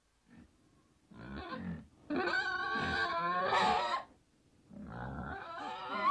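Wild boar squealing: three cries, the middle one the longest and loudest, at about two seconds.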